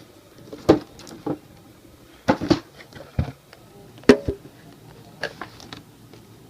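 Cardboard toy packaging being handled and pried at, with a scattered series of sharp clicks and knocks, a cluster of them about two and a half seconds in.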